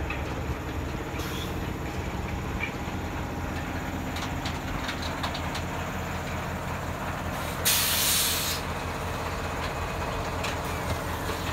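Silage packing machines running with a steady low mechanical hum, and a short loud hiss about eight seconds in.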